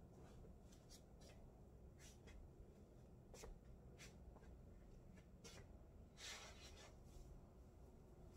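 Faint, brief rustles of a lightweight scarf's fabric as it is handled, tied and draped, several short swishes with a longer one about six seconds in, over near-silent room tone.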